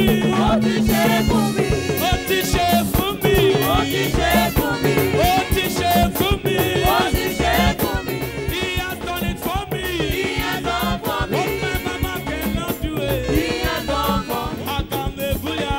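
Live church band playing upbeat gospel music: a steady pulse from the drum kit and hand drums under a man singing into a microphone.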